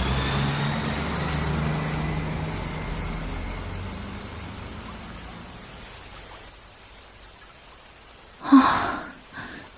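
City bus engine pulling away, its low hum and a faint whine falling in pitch fading out over about seven seconds under a steady hiss of rain. Near the end comes a short sigh.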